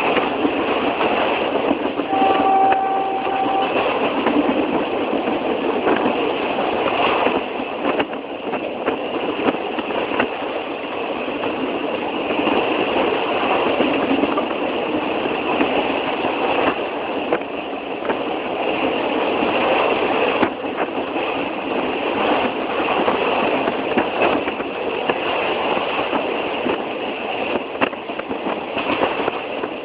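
Train running on the rails with a steady rattle and clatter of wheels and carriages, and a short horn-like tone about two seconds in.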